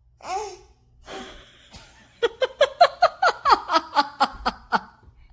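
A burst of laughter: a couple of short breathy sounds, then from about two seconds in a quick run of around fifteen short "ha" pulses lasting about two and a half seconds.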